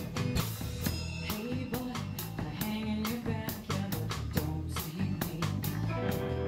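A small rock band playing live: drum kit keeping a steady beat under bass, electric guitar and strummed acoustic guitar, with a woman singing.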